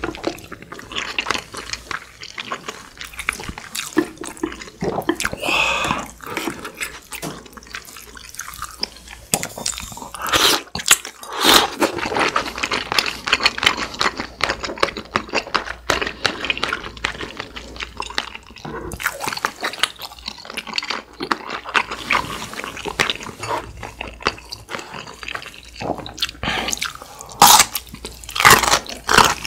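Close-miked eating sounds: wet chewing and liquid sounds of beef short rib soup and glass noodles picked up with chopsticks, with irregular crunches and clicks throughout.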